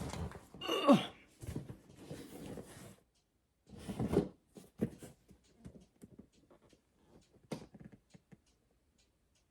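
A woman with a bad cough coughing and breathing roughly through the first few seconds, with another cough about four seconds in, then a scatter of light taps and knocks.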